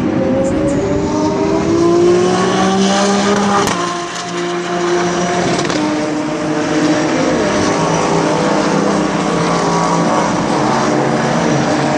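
Several GT race cars running at speed on the circuit. Their engine notes rise in pitch under acceleration over the first few seconds, ease briefly, then overlap as steady engine tones while more cars come past.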